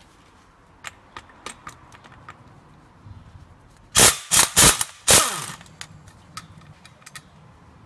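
Cordless impact wrench undoing a propeller-shaft flange bolt at the rear differential: a few loud, short hammering bursts about four seconds in, the motor winding down after the last one. Small clicks of the socket and bolt before and after.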